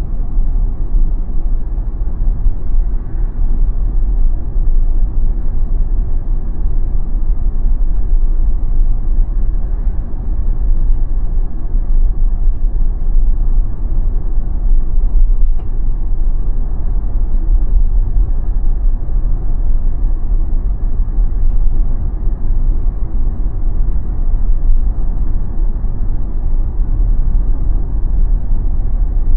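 Steady low rumble of tyre and road noise from a Tesla electric car driving at speed, heard from inside the cabin with no engine sound.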